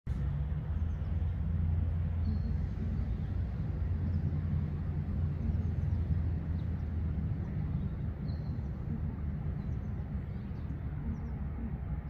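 Steady low rumble of distant road traffic, with faint short chirps of small birds now and then.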